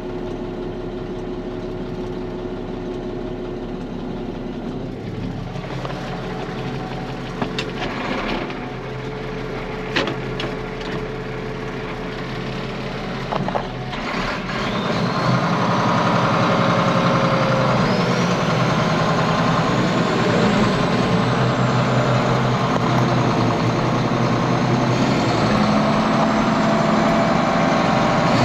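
Case 4690 tractor's diesel engine idling, with a few sharp knocks in the first half; about halfway through the engine speeds up and runs much louder, with a high whine rising in pitch, as the tractor gets under way.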